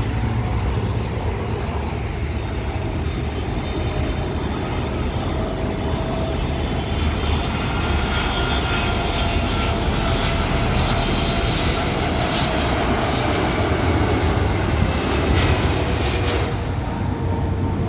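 Boeing 777-300ER's GE90 turbofan engines on final approach: a jet whine and roar that grows louder as the airliner passes low overhead, its pitch falling slightly, then drops away suddenly near the end.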